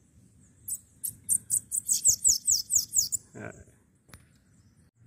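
Bananaquit (sibite) singing: a quick run of about a dozen thin, very high, falling notes for a little over two seconds, followed by a brief low sound and a click.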